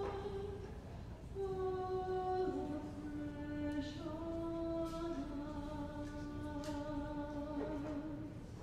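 A solo voice singing a slow hymn melody, one long held note after another, with a short break about a second in.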